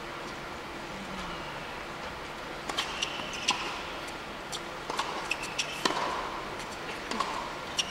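Tennis rally on an indoor hard court: sharp pops of racket strings striking the ball and the ball bouncing, starting almost three seconds in and coming at an uneven pace, over a quiet, steady arena hush.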